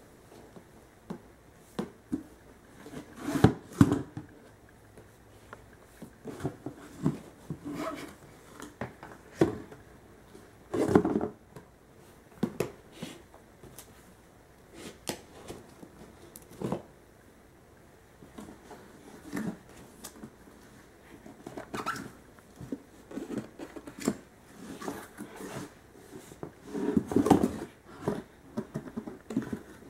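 A baby handling a cardboard box and a flat case on carpet: irregular knocks, scrapes and rustles, with a few louder clusters of knocks about four seconds in, around eleven seconds and near the end.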